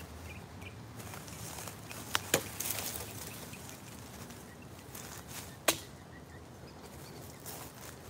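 Three sharp cracks of wood, two close together about two seconds in and one near six seconds, the second followed by a short rustle of brush; between them, footsteps and rustling on dry leaf litter.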